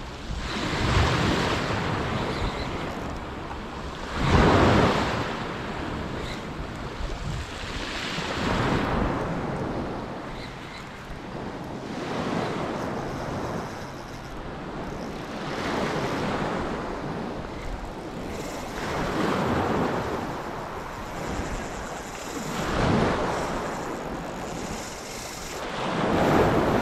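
Small surf breaking on a beach: one wave washes in and fades about every three to four seconds. Wind is buffeting the microphone.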